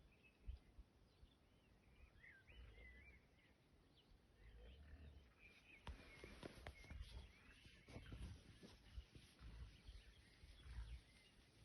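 Faint outdoor ambience with small birds chirping now and then, over a low rumble, and a few faint clicks or rustles about six to eight seconds in.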